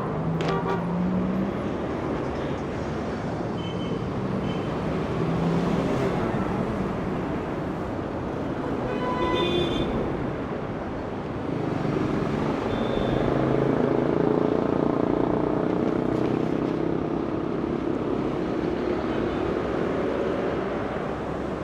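Busy city street traffic: a steady wash of engine and tyre noise from passing vehicles. In the second half a vehicle's engine rises in pitch as it accelerates, and the overall noise swells.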